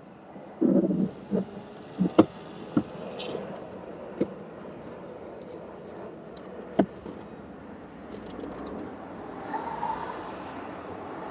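Scattered sharp clicks and knocks inside a car's cabin, the loudest about two seconds in, over steady background noise, with a short muffled low sound near the start.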